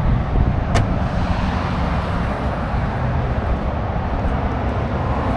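Steady road traffic noise with a low rumble, and a single sharp click about a second in.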